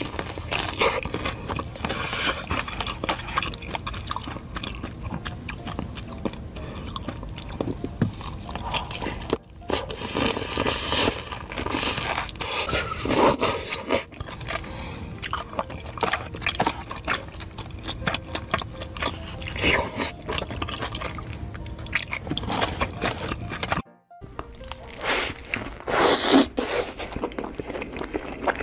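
Close-miked eating, biting and crunchy chewing of fried food, over background music. A momentary silence breaks it near the end.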